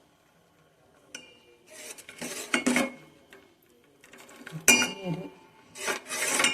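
Metal pot and utensils being handled: a short ringing clink, stretches of metal scraping and rattling, and one sharp, ringing clank a little under two-thirds of the way through, the loudest sound.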